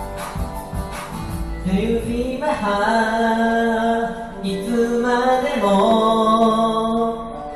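Pop song with a drum beat and bass for the first second or so, then a solo voice singing long held notes over the backing track.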